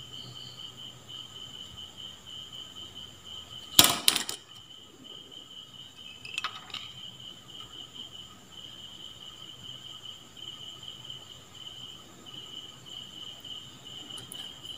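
Cricket chirping steadily in the background as a fast, even high trill. A sharp knock about four seconds in is the loudest sound, and a fainter click comes a couple of seconds later.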